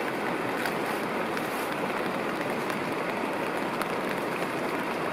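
Steady rush of a nearby river, with rain falling on a tarp overhead and faint scattered drop ticks.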